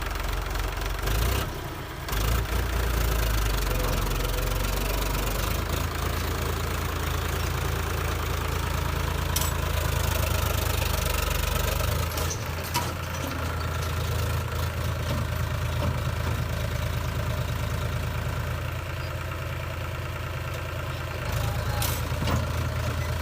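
Heavy diesel engine of a backhoe loader or tractor running with a steady low rumble that shifts up and down in level a few times, with a few sharp knocks along the way.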